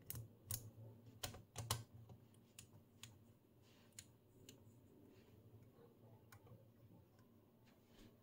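Front-panel controls of a Hameg HM207 oscilloscope being turned by hand: a string of sharp clicks from its knobs and rotary range switches, several close together in the first two seconds and sparser after. A faint steady low hum runs underneath.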